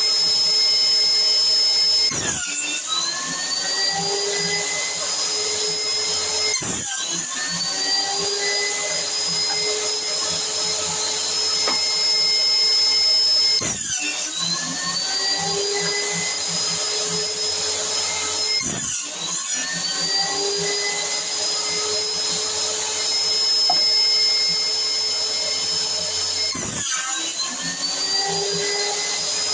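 Homemade combination jointer and table saw running with a steady high whine. Five times, as a board is fed through, the motor bogs down with a sudden drop in pitch, then climbs back up to full speed over the next few seconds.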